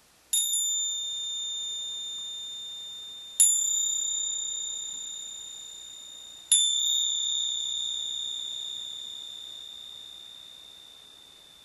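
A mindfulness bell struck three times, about three seconds apart, each strike leaving a high, clear ring that slowly fades; the three bells mark the start of a mindfulness exercise.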